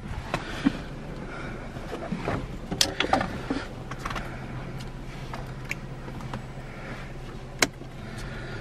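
Scattered clicks and knocks from a hand working a car's gear lever and shift knob, over a steady low hum that starts a few seconds in.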